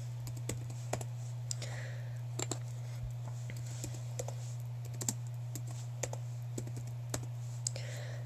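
Typing on a computer keyboard: irregular keystroke clicks, a few a second, over a steady low hum.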